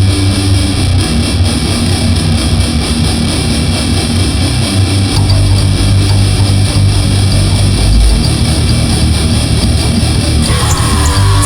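Loud rock-style music led by guitar. The arrangement changes about ten and a half seconds in, with a gliding tone coming in.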